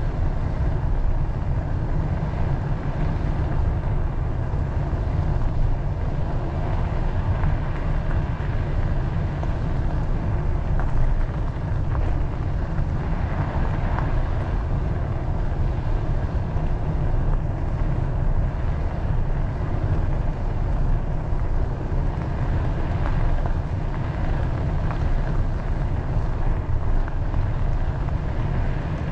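Steady low rumble of wind buffeting the microphone while riding a bicycle.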